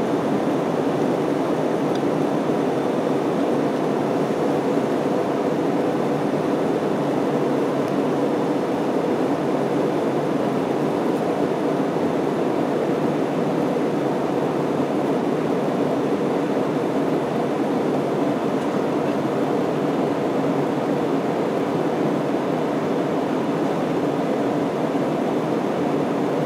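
Steady cabin noise of an Airbus A320 in flight after takeoff: its jet engines and the air rushing past the fuselage make an even, unchanging rush.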